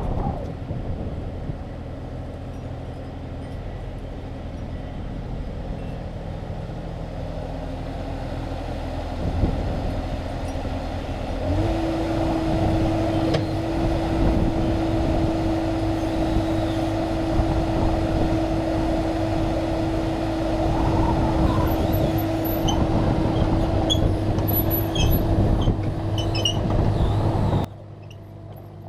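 Kubota excavator's diesel engine running steadily; about a third of the way in it gets louder and a steady whine joins in as the machine works, and near the end the sound drops suddenly to a lower level.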